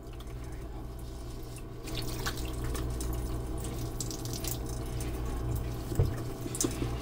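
Water poured from a plastic jug over a newborn's head in a plastic baby bath, trickling and dripping into the tub in small irregular splashes, over a low steady hum. One louder knock comes near the end.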